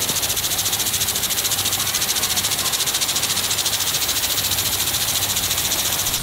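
Impact sprinklers running on pumped water: the spray hisses and the sprinkler arm ticks rapidly and evenly.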